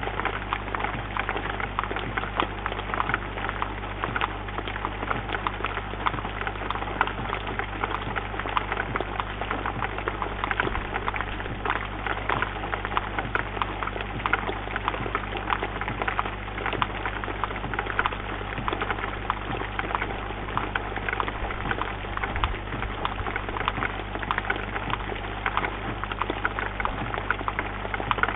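Steady rain falling on a bird feeder, a dense, even patter of countless drops ticking against it, heard from close by.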